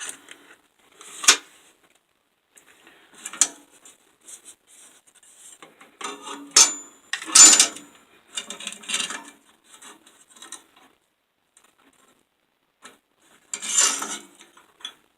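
Steel pieces and hand tools handled on a workbench: a scattering of clicks, clinks and scrapes, one sharp click with a brief high ring about six and a half seconds in.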